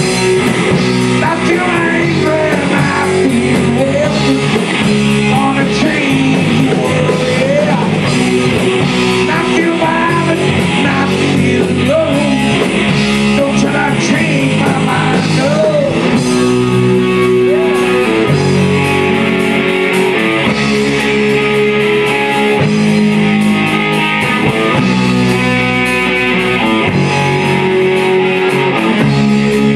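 Live rock band playing amplified electric guitars over a drum kit, with a singer's voice at times.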